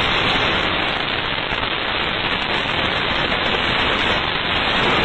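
Loud, steady hiss of static-like noise that cuts in abruptly and holds at one level without fading.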